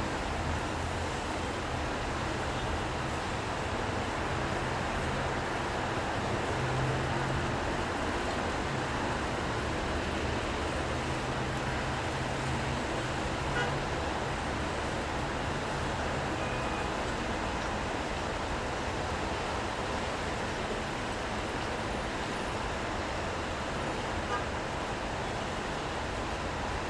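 City street ambience in the rain: a steady hiss of rain and passing traffic. A vehicle engine's low hum runs through about the first half.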